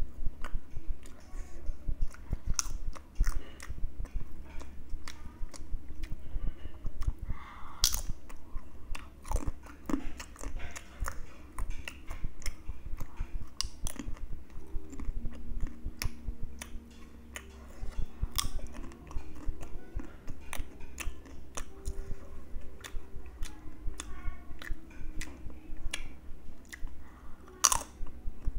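Close-up crunching and chewing of crispy, spiced ring-shaped fried papad crackers, with many sharp irregular bites and crunches between the chewing.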